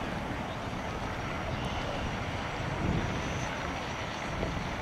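Radio-controlled model boat running on the water: a thin, high motor whine over a constant low rumble.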